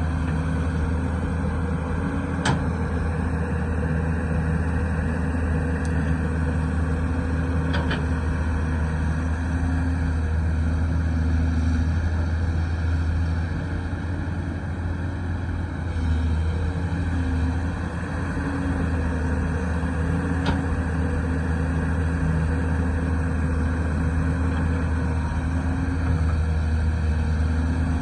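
Excavator's diesel engine running steadily under work, with a few sharp clicks or knocks and a couple of brief dips in engine load.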